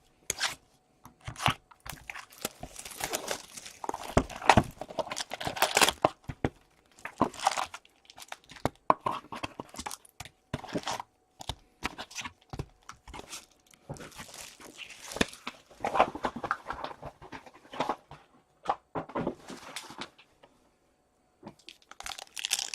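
A sealed box of hockey trading cards being opened by hand: plastic wrap and foil pack wrappers torn and crinkled, with irregular rustles and sharp crackles and a short pause near the end.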